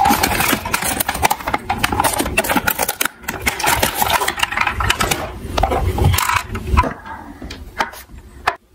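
Cardboard packaging and plastic toy cars being handled: rapid, irregular rustling, scraping and clicking, with a few heavier thumps around six seconds in.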